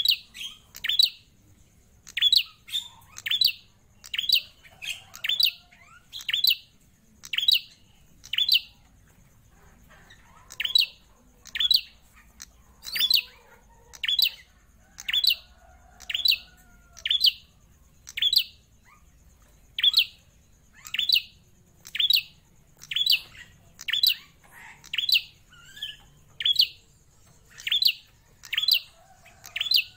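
Caged prenjak klawu songbird calling loudly and tirelessly in short, sharp, downward-sliding notes, about one a second and now and then doubled: the bird is in full song (gacor).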